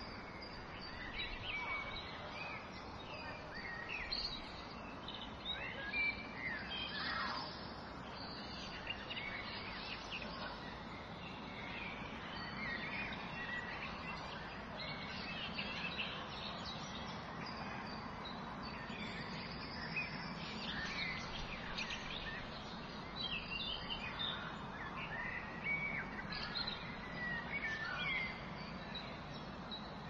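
Several birds chirping and calling in short, overlapping notes and trills over a steady background hiss of forest ambience.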